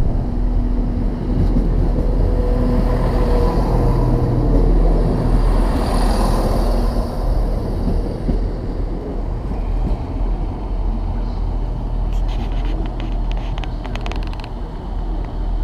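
Class 170 Turbostar diesel multiple unit running past close by, its underfloor diesel engines droning steadily. The sound is loudest about five to six seconds in, then eases, with a run of sharp clicks near the end.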